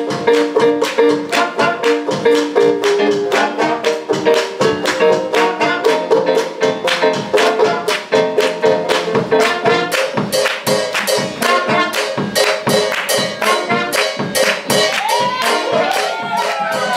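Live small jazz band playing a swing tune: saxophones and trumpet carry the melody over drums and banjo keeping a steady beat.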